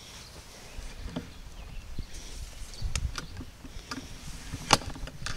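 Wood fire crackling in a cinder-block smoker firebox: irregular sharp pops and snaps, the loudest near the end, over a low rumble.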